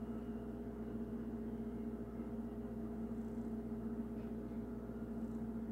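A steady low hum, room tone, with no other sound standing out.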